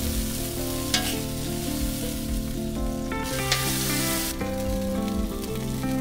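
Burger patties sizzling on a Blackstone flat-top griddle, with two sharp clicks of metal tongs against the patties or griddle, about a second in and again past the middle. Background music plays underneath.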